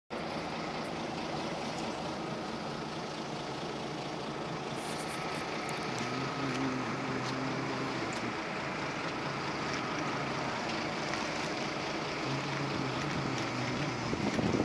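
Street traffic at a junction: a steady hum of idling and slowly passing car engines, with a couple of low engine swells about six seconds in and again near the end.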